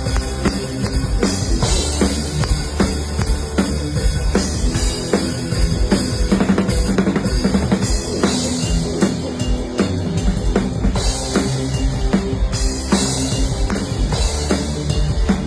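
Rock band playing live at a sound check, the drum kit out in front with steady kick and snare hits and cymbals over bass.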